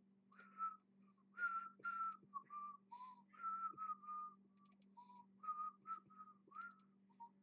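A person whistling a wandering tune in short notes, about a dozen or more rising and falling between two or three pitches, over a faint steady electrical hum.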